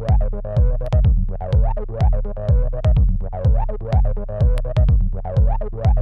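Electronic jam: a Korg Volca Kick's deep, falling-pitch kick drum repeats about three times a second under a gliding acid bass line from a Korg Volca NuBass, with sharp clicks from a SOMA RoAT noise synth over the top.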